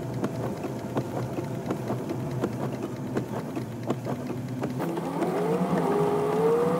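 Car driving in rain, heard from inside the cabin: steady engine and road noise with irregular ticks of raindrops on the windshield. From about five seconds in, the engine's pitch rises steadily as the car speeds up.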